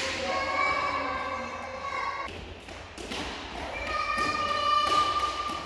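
Background music with long held notes, sung or played, with a few dull thuds, the loudest right at the start and others about three and five seconds in.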